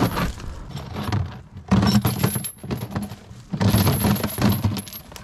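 Heavy half-inch steel chain rattling and clinking as it is handled, in two loud bursts of link clatter about two seconds apart.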